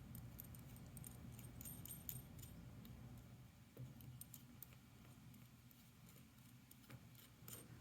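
Faint, light metallic clicks and rattles from a Miwa magnetic cam lock's small parts being handled as the lock is taken apart.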